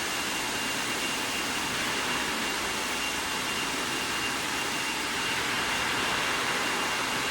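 Steady factory machinery noise, like a large fan or blower running, with a faint steady high whine on top.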